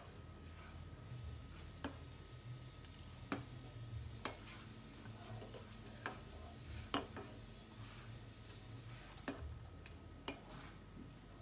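Metal ladle stirring sabudana kheer in a steel saucepan, clinking sharply against the pot about seven times at uneven intervals, over a low steady hum.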